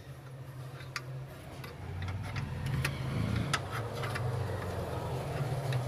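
Spanner working a bolt loose on the air-filter bracket, giving irregular sharp metallic clicks over a steady low hum.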